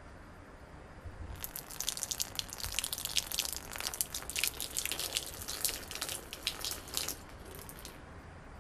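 Red wine poured out of a wine glass, splashing and dripping in a thin stream. It starts about a second and a half in and stops shortly before the end.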